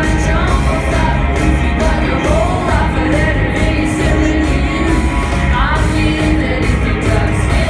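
Live rock band playing: electric guitars, bass and drums, with a woman singing over them, heard from the audience in a large hall.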